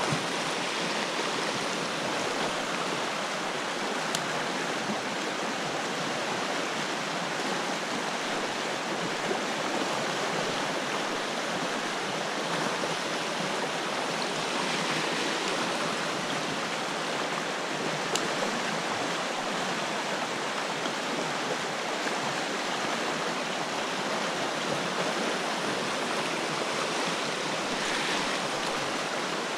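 Fast-flowing creek water rushing steadily over shallow rapids.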